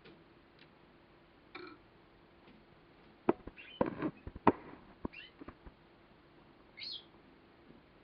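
Male Gloster Corona canary giving a few short chirps, with one brief call near the end. A cluster of sharp clicks and knocks, the loudest sounds, comes in the middle, and a faint steady hum runs underneath.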